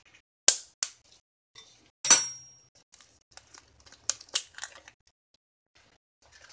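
An egg being tapped to crack it into a plastic mixing bowl with a wire whisk in it: a few sharp taps, one louder knock about two seconds in that rings briefly, then a quick run of taps just after four seconds.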